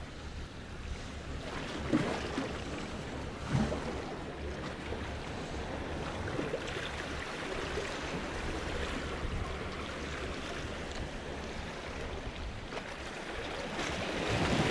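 Sea waves washing against the rocks at the water's edge in a steady noisy wash, with two louder thumps about two and three and a half seconds in.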